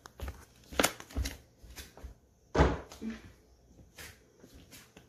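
Handling noises: a few separate sharp knocks and clunks of objects being picked up and set down, the loudest about two and a half seconds in.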